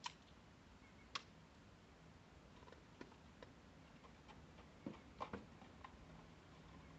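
Near silence broken by a few faint, sharp ticks: two about a second apart at the start, then scattered smaller ones with a little cluster about five seconds in.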